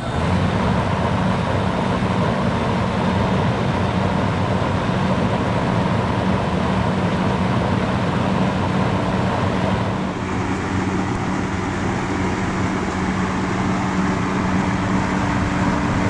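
1983 Carrier Compact 5-ton central air conditioner condensing unit running steadily: a constant low compressor hum under the air rush of the top-discharge condenser fan.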